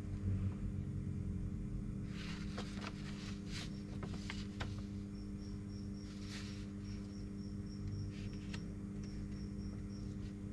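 Sheets of paper rustling and crinkling as they are handled and shifted, in short bursts over a steady low electrical hum.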